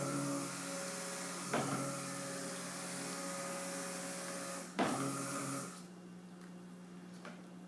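Immersion (stick) blender motor running in cold process soap batter, mixing oils and lye water toward trace. A knock about a second and a half in and a louder one near five seconds in, then the motor cuts off about six seconds in.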